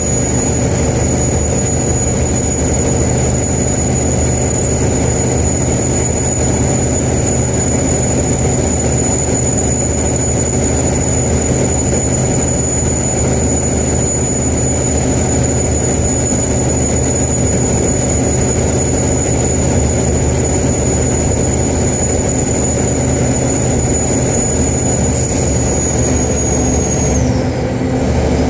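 Turbocharger on a mechanical 575 hp single-turbo Cat diesel in a 2001 Kenworth truck, whistling at a steady high pitch over the engine running at held revs. Near the end the whistle drops away quickly as the revs fall.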